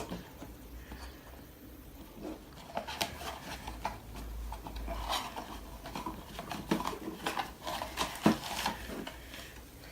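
Small cardboard blind box being opened by hand: scattered light clicks, taps and rustles of card flaps being pried and pulled open.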